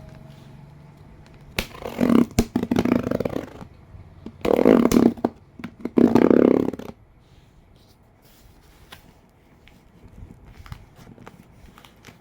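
Hands handling a vinyl record's packaging, rustling and scraping in three loud bursts, then a few faint clicks and taps.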